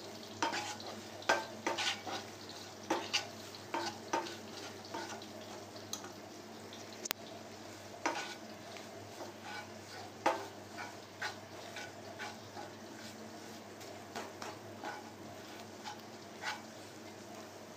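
Wooden spatula scraping and tapping irregularly around a non-stick frying pan as an onion-and-spice mixture is stirred in oil, with frying sizzle underneath.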